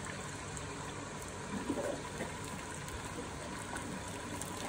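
Wort trickling and splashing steadily onto the grain bed in a mash tun, returned through a copper recirculation ring as the mash is recirculated.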